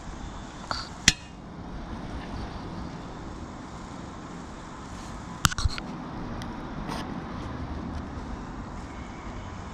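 Metal hardware clinking on the giant swing's steel bar: steel carabiners knocking on the galvanised beam, once sharply about a second in, then three quick clinks around five and a half seconds and a lighter one near seven. Under them runs the steady low rumble of the ride moving.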